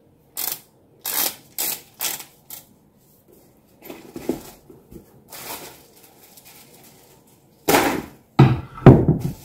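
Milwaukee M18 Fuel drywall screw gun's depth-adjustment nosepiece being turned, a row of sharp plastic clicks about two a second in the first couple of seconds. Near the end, a few louder thumps and rustles from handling the tool and its canvas bag.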